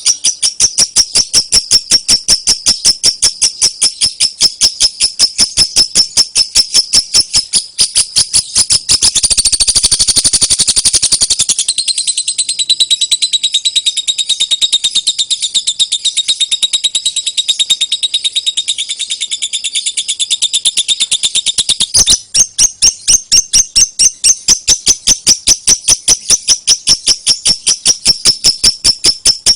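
Lovebird giving its rapid, repetitive 'ngetik' (typing) song: a long run of sharp, high chirps, several a second, like keys tapping. About a third of the way in it speeds into a dense trill, then a faster, more tonal chatter, and returns to the evenly spaced chirps for the last part.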